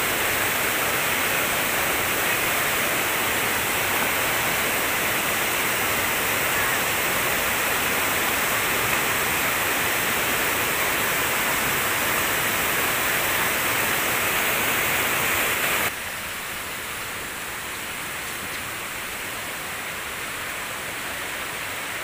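Steady rush of water from a waterfall and its rocky stream. It drops suddenly to a quieter, duller rush about 16 seconds in.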